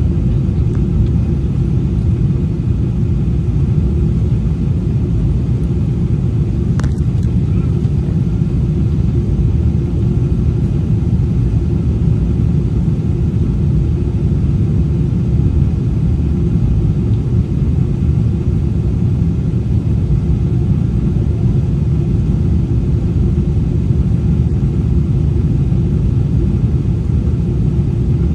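Steady low roar inside a jet airliner's cabin on the approach to landing: engine and airflow noise heard at a window seat over the wing. There is one brief click about seven seconds in.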